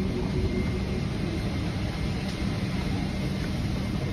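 Steady cabin noise inside a Boeing 777-300ER: an even low rumble and rush of air with a faint high steady whine over it.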